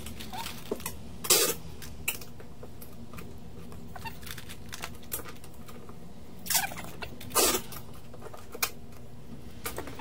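Small metal phone parts and tools clicking and scraping as they are handled on a silicone repair mat, with a few sharp clicks, the loudest about a second in and around seven seconds in. A steady low hum of bench equipment runs underneath.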